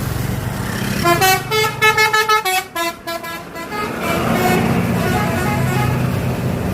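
Bus 'telolet' basuri melody horn playing a quick multi-note tune, starting about a second in and lasting about two and a half seconds, over the bus engine's steady running, which carries on alone afterwards.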